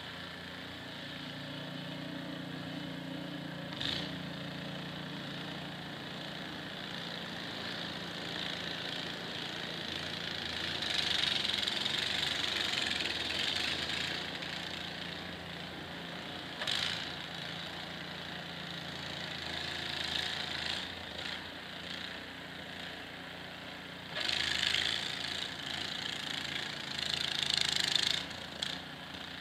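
An engine running steadily, with louder hissing stretches twice and a couple of brief sharp sounds.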